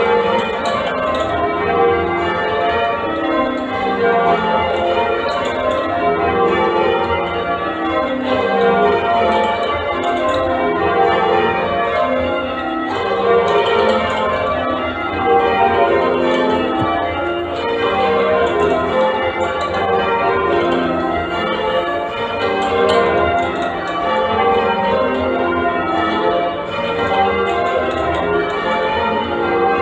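A ring of eight church bells, a complete Mears & Stainbank cast at St Andrew Holborn, being rung in changes. Strokes follow one another steadily in shifting descending rows with no pause.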